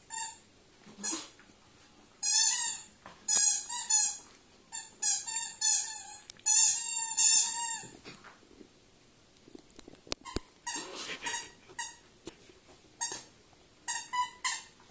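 A yellow squeaky dog toy squeaked over and over as a Welsh springer spaniel puppy chews it, in quick runs of squeaks, louder in the first half and fainter and more scattered later.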